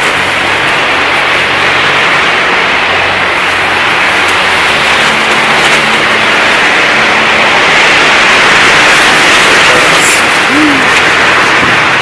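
High wind blowing over a Warbonnet Superfly hammock tarp, heard from inside the hammock as a loud, steady rush of noise that swells a little past the middle.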